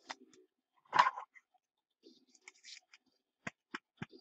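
A trading card being slid into a plastic penny sleeve and rigid top loader by hand: light plastic rustling, a knock about a second in, and three sharp clicks near the end.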